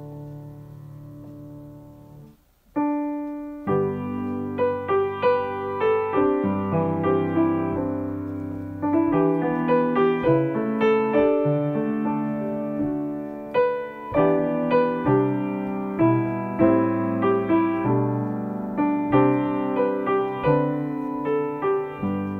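A grand piano is played solo. A held chord fades to a brief pause about two and a half seconds in. A loud chord follows, then a flowing passage of notes over sustained bass.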